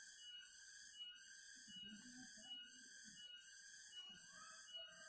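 Near silence with a faint, high-pitched call repeating steadily, about three calls every two seconds.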